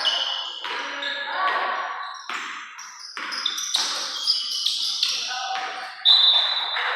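Basketball being bounced on an indoor court, several sharp bounces, with the voices of players and spectators around the game.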